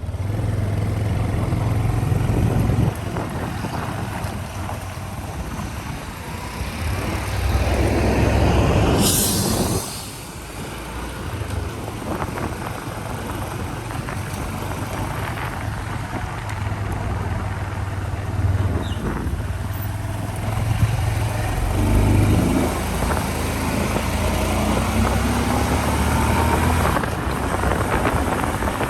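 Motor vehicle noise on the road: a steady low engine drone with road and wind noise, swelling louder for a couple of seconds about eight seconds in as something passes close.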